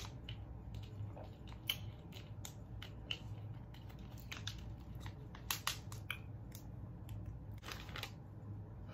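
Close-up eating sounds: a person chewing fast food, with many short wet mouth clicks and smacks over a steady low hum. There is a brief rustle near the end.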